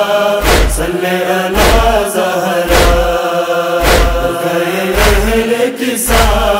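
Wordless vocal chant holding long drawn-out notes of the noha melody, over a steady beat of deep thumps a little over once a second: the matam (chest-beating) rhythm of a noha.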